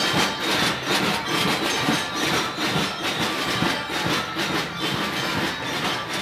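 Parade drum corps playing a steady, rhythmic beat on snare and bass drums.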